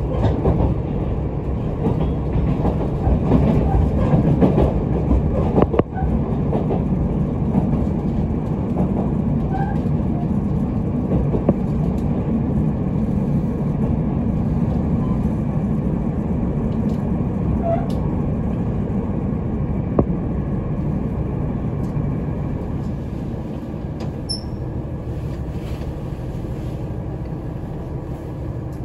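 Steady rumble inside a KiHa 75 diesel railcar on the move, with a few sharp clicks; the sound is a little louder and rougher for the first several seconds, then evens out and eases slightly.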